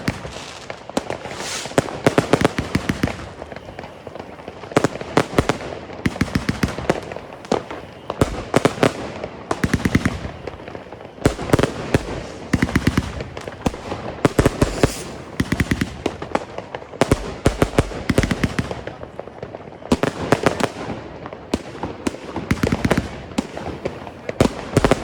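Funke Blütenregen firework battery firing: clusters of rapid sharp cracks and bangs, one group after another with short lulls between.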